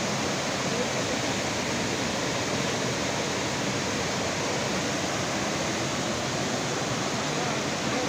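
Water rushing steadily over a row of small rock-ledge cascades into a pool: an even, continuous splashing rush.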